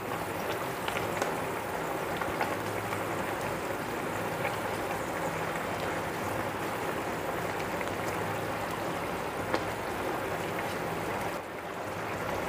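Thin, watery curry gravy boiling hard in a non-stick frying pan: steady bubbling, with a few faint knocks. The water has come to a full boil, ready for the fish.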